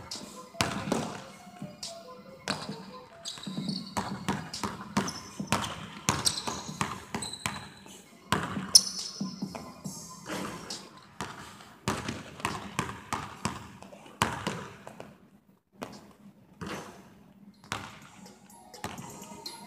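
Basketball dribbled hard on a hardwood gym floor in quick, irregular runs of bounces, with music playing underneath.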